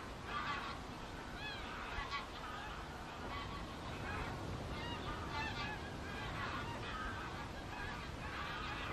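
A flock of greylag geese honking in flight: many short calls, overlapping, one after another.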